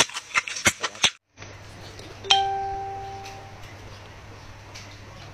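Wet eating clicks and smacks of a mukbang for about a second, a brief drop to silence, then a single bell-like chime that rings out and fades over a second or so above a low steady hum: a transition sound effect under a title card.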